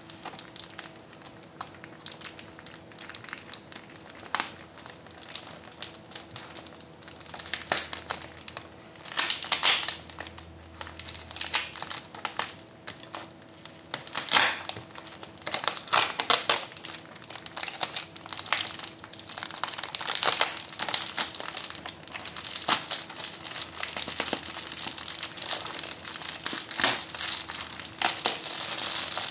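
Foil bubble-insulation mailer crinkling and crackling as hands pull and fold it at its taped-shut end, in irregular bursts, busiest in the second half.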